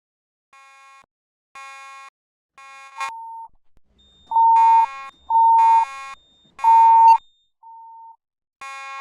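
Fire alarm notification appliances sounding during a test: a harsh, buzzy tone pulsing about once a second, joined from about three seconds in by a louder, purer beeping tone.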